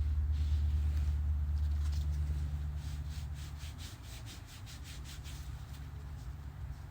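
Leather sheath being rubbed by hand to work conditioner into it, with a run of quick rubbing strokes in the middle. Under it is a low rumble that fades about three seconds in.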